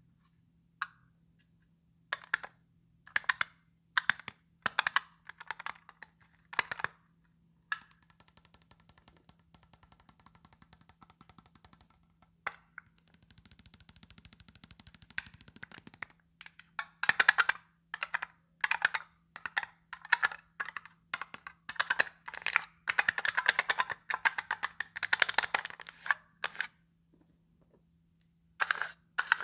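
Close-miked ASMR tapping and scratching: single sharp taps about once a second, then a stretch of fast fine ticking and a soft hiss, then quick runs of taps and scrapes.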